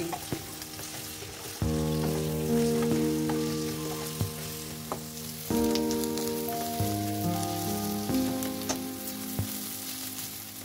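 Sliced onions sizzling in hot oil in a stainless steel pan, with a spatula clicking against the pan now and then as they are stirred. Background music of held chords plays over it, changing chord about a second and a half in, again past five seconds and near seven.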